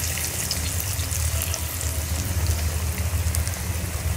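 Small lumps of ground moong dal paste deep-frying in hot oil in a kadai: a steady bubbling sizzle with fine crackles, over a steady low hum.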